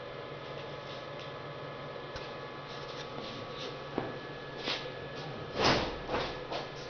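Oral thin-film strip machine running with a steady hum as the film strip feeds over its steel rollers. A few short scratchy noises come in the second half, the loudest about six seconds in.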